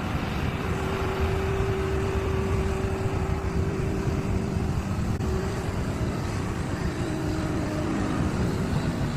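Komatsu PC650LC hydraulic excavator's diesel engine running steadily, with a held whine that comes in about half a second in and again about seven seconds in.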